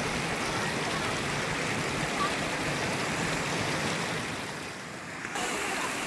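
Steady rush of water cascading over rock ledges at a small waterfall. It drops briefly about five seconds in, then returns.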